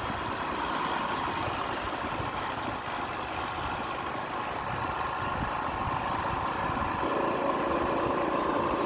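Scooter engine running steadily, with wind buffeting the microphone.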